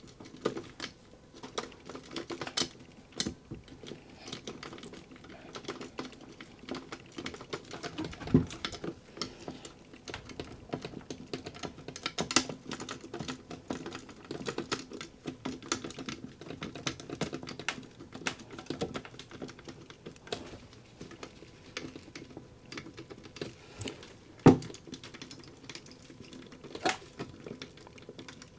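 A Bic marker's plastic barrel being pushed and twisted in a gun safe's tubular lock to pick it: a steady run of small irregular clicks and scrapes, with a few sharper knocks.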